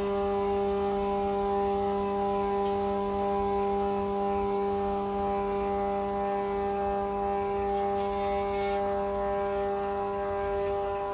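Stepper motor driving the launch pad's rail up to vertical with a 500 gram model rocket loaded: a steady hum at one low pitch with overtones.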